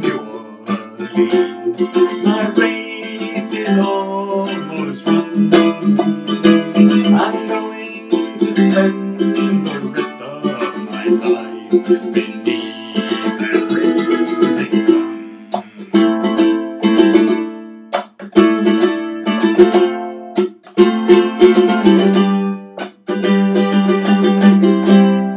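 Ukulele strummed in a steady rhythm, its chords ringing, with two short breaks and a last chord left ringing at the end.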